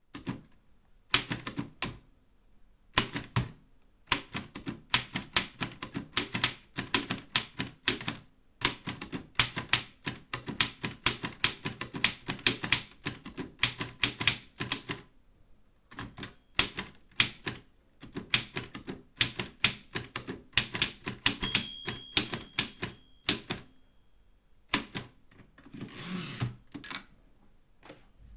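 Erika 5 manual typewriter being typed on in quick runs of sharp key strikes, with brief pauses between bursts. About three-quarters through, a bell rings once as the line nears its end. Near the end comes a longer sliding rasp as the carriage is returned.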